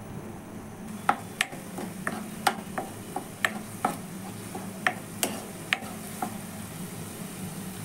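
Plastic spatula tapping and scraping against a non-stick pan while stirring a thick coconut, green chilli and cumin paste frying in a little oil. The clicks are irregular, about two a second, starting about a second in and stopping near the end, over a steady low hum.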